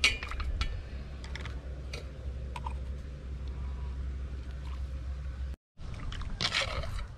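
A spoon stirring a thick shrimp-paste (mắm ruốc) sauce in a bowl: scattered light clicks and scraping over a steady low rumble.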